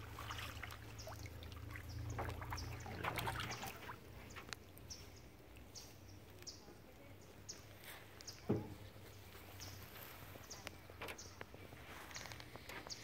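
Canoe paddle strokes, the blade dipping and splashing in calm water, with one sharp knock about two-thirds of the way through. Short high chirps from a bird repeat about twice a second throughout.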